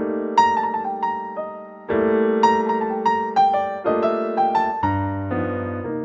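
Background piano music: slow held chords with a simple melody of single notes on top, the chord changing about every two seconds.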